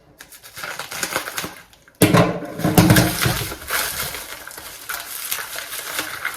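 Packaging being handled while vitamin products are taken out of a box: crinkling and crackling with small clicks and knocks, and a sudden louder rustle about two seconds in.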